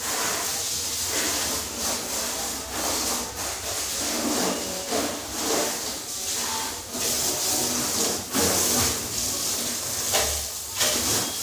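Water spraying from a garden hose onto a car's bodywork: a steady hissing spray whose loudness rises and falls as the stream is moved over the car.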